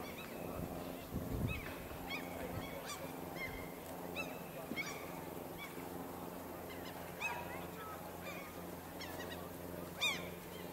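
Waterbirds calling repeatedly, short calls that rise and fall in pitch, coming every second or so, with the loudest call near the end.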